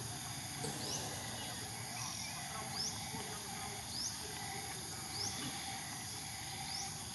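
Steady high-pitched insect drone, with a short rising chirp repeating about once a second.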